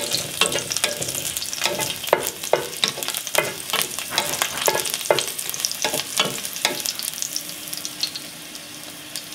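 Whole garlic cloves sizzling in hot oil in a frying pan, with a wooden spatula scraping and tapping across the pan bottom as they are stirred. The stirring stops about three-quarters of the way through, leaving a lighter, steady sizzle.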